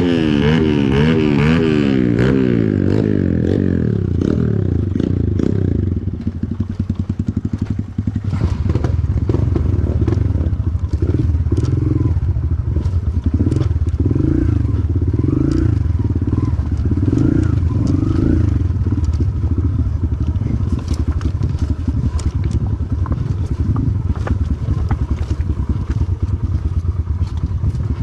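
Pit bike engine revving in quick rises and falls for the first few seconds, then dropping to a low, steady run for the rest, with frequent rattles and knocks over it.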